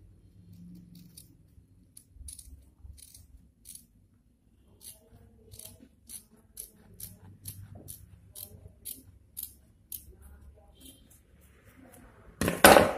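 Scissors snipping through fusing paper (fusible interfacing) along a curved neckline, short repeated cuts about two a second. Near the end there is a brief, much louder noise.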